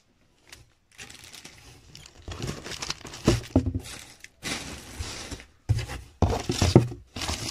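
Clear plastic packaging crinkling and paper flyers rustling as items are handled in a cardboard box, in irregular bursts with a few soft knocks, after about a second of silence at the start.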